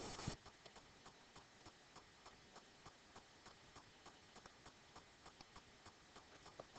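Near silence with a faint, regular ticking, about three ticks a second. A short burst of louder noise cuts off abruptly right at the start.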